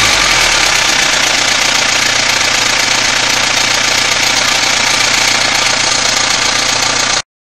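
Mitsubishi Pajero 2.8TDI's 4M40 four-cylinder turbo-diesel engine running steadily with a strange noise that the owner suspects comes from the timing chain. The sound cuts off suddenly near the end.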